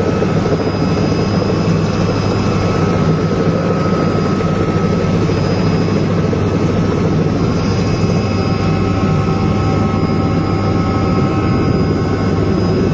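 Helicopter running steadily: a constant low rotor noise with a thin high whine over it.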